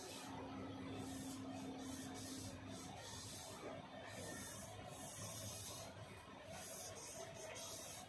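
Felt-tip permanent marker scratching across butter paper in a series of short strokes, each a brief hiss with small gaps between them as the pen lifts and sets down again.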